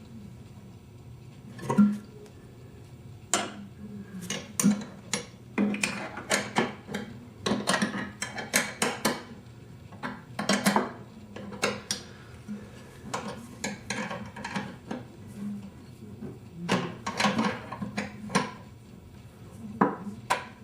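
Irregular metallic clinks and knocks of a 13 mm wrench and hardware on a potter's wheel motor mount as the belt-tensioning nut is tightened. There are clusters of quick clicks, with the sharpest knocks about two seconds in and near the end.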